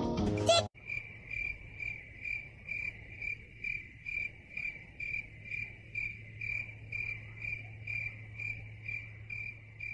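Cricket chirping at an even pace, about two chirps a second, over a faint steady low hum. A music cue cuts off just under a second in.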